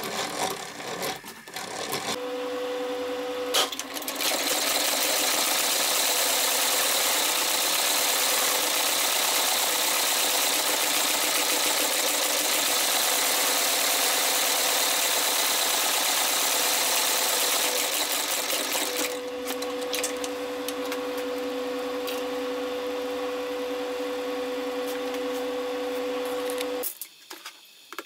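Sole stitching machine running: its motor hums with a steady tone, then it stitches an outsole through leather in one long fast run of about fourteen seconds. The motor runs on after the stitching stops and cuts off about a second before the end.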